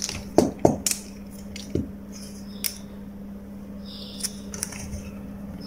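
Small clicks and rubbing as multimeter test probes are handled and pressed against the leads of a desoldering gun's heating element, a scatter of sharp ticks over a steady low hum.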